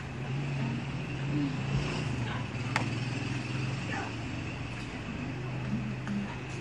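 A steady low hum over a constant background noise, with one short click about three seconds in.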